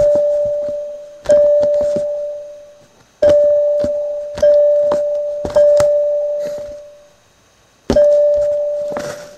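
A bell-like chime on a home-made whack-a-mouse cat toy, struck six times at irregular intervals: each strike is a thunk followed by one clear ringing note that fades over a second or two.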